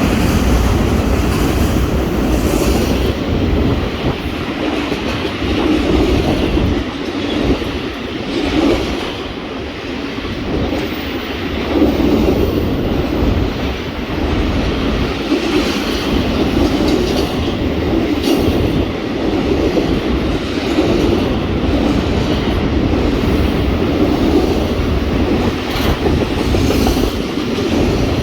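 A train passing on the main line, loud and steady, its wheels rumbling and clattering over the rails with a clatter that swells and fades every second or two.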